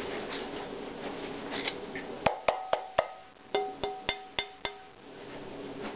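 A thick 12-inch nonstick frying pan held by its handle and struck by hand: four quick strikes, then five more, each ringing briefly with a bell-like tone.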